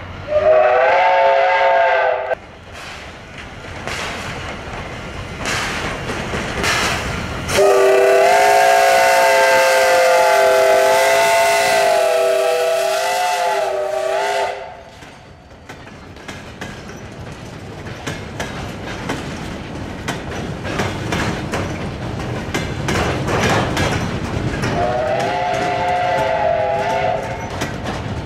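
Steam whistle of the Em 710-46, an Э-class 0-10-0 steam locomotive, sounding a chord of several tones: a short blast at the start, a long blast of about seven seconds, and another short blast near the end, its pitch wavering slightly. Between the blasts, the wheels of passing freight wagons and a passenger car clack rhythmically over the rail joints.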